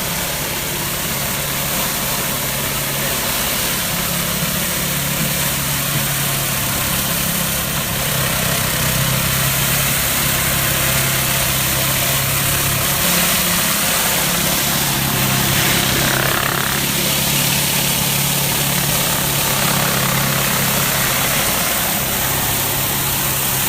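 Pressure washer's engine running steadily, with the hiss of high-pressure water spray.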